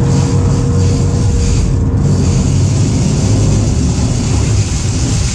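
Game-fishing boat's engines running steadily under a low rumble of wash and water around the stern.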